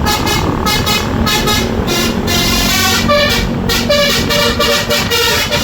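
Telolet bus horn, the Indonesian multi-tone air horn, sounding a quick run of short notes that keep changing pitch, over the rumble of the bus.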